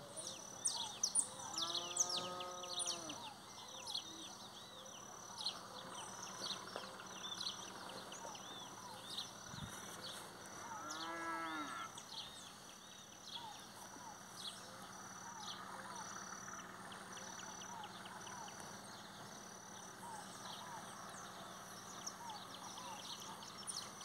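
Cattle mooing twice, each a short call that rises and falls in pitch, once about two seconds in and again about eleven seconds in. Many birds chirp and call throughout, with a high note repeating about twice a second.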